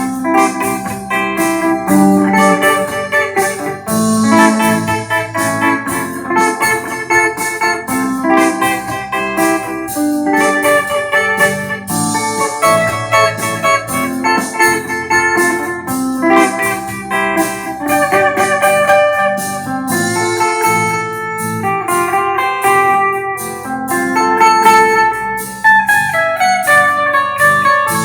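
Electric guitar played through a clean, undistorted tone: a continuous run of plucked notes and chords, each with a sharp attack.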